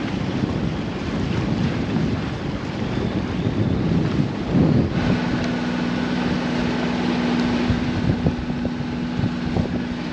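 Strong, gusty wind buffeting the microphone aboard a small sailboat motoring in gale-force gusts. About halfway through, a steady low hum joins in under the wind.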